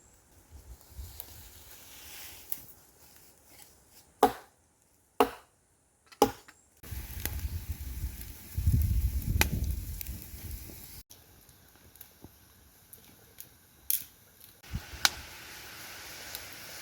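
Three loud, sharp chopping strikes about a second apart, a blade biting into wood, followed by rustling and handling noise and a few lighter knocks.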